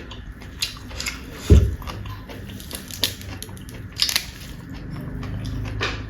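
Close-up eating sounds: crunchy food being bitten and chewed, with sharp crunches every second or so. A loud low thump about a second and a half in.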